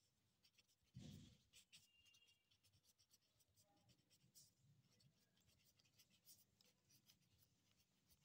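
Faint scratching of a ballpoint pen writing on lined notebook paper, with a soft low thump about a second in.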